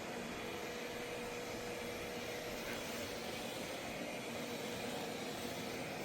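Robot vacuum running: a steady whirring hiss with a faint even hum, unchanging throughout.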